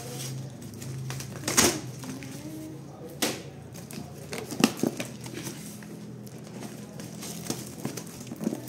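Corrugated cardboard shipping box being pulled open by hand: flaps rustling and scraping, with a few sharp crackles and knocks, the loudest about one and a half seconds in and again near the middle.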